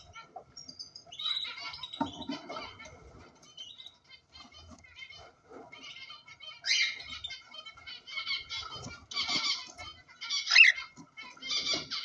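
Cockatiels in a nest box making short, scratchy calls and chirps, with rustling of feathers and wood shavings and a few low bumps; one louder call stands out near the end.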